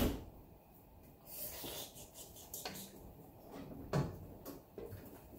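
A glass lid being handled on a cooking pot: a sharp clink right at the start, then a duller knock about four seconds in, with light rubbing and clatter between.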